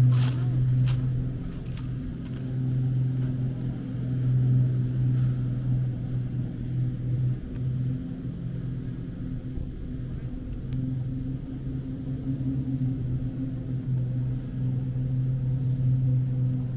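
A steady low mechanical hum with a fainter, higher tone riding on it, holding even throughout.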